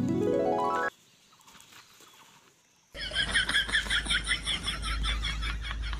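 A rising gliding tone, a comic sound effect, cuts off about a second in. After a short near-quiet gap, a fast rhythmic run of cackling, fowl-like calls starts about three seconds in, over a low hum.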